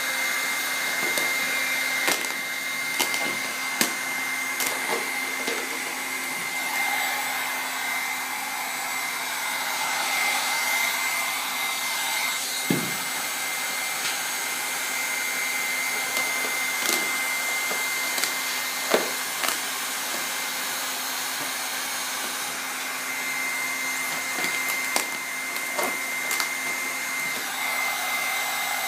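Heat gun blowing steadily, a continuous hiss with a constant high whine, used to soften vinyl wrap film. Scattered light clicks and a few heavier knocks come from the film and wing being handled.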